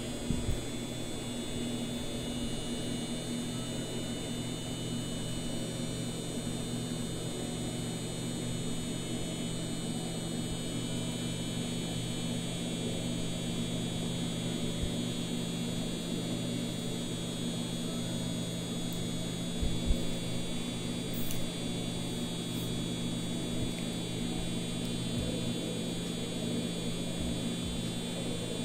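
Foreo UFO 2 facial device running its T-Sonic pulsation and cooling mode: a steady low buzzing hum. There is a brief knock about twenty seconds in.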